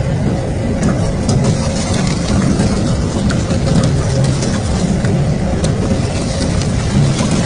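Double-shaft shredder running with a steady low drone and a faint steady hum, while scattered sharp clicks and crackles come from pieces being caught and torn between the hooked cutter discs.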